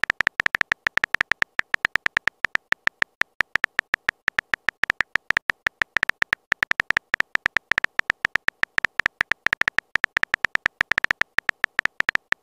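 Texting app's keyboard-typing sound effect: a rapid, uneven string of short clicky ticks, about eight a second, as messages are typed out.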